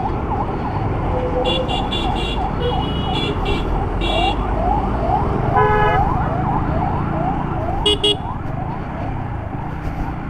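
Jammed road traffic: a siren yelps in rapid short rising sweeps, about three a second, over the steady rumble of engines. Vehicle horns honk in short toots several times, with one longer, lower honk near the middle.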